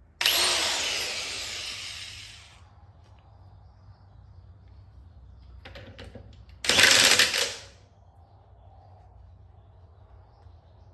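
Impact wrench running in two bursts, a longer one of about two and a half seconds that tapers off and a shorter one of about a second near the middle, tightening the nut that holds a lawn mower's blade on its crankshaft.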